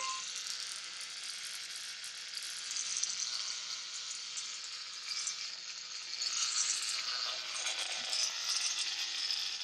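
Vintage violet ray therapeutic device running, its glass electrode giving off a steady hissing, crackling buzz from the high-voltage discharge. The sound grows a little louder about six seconds in.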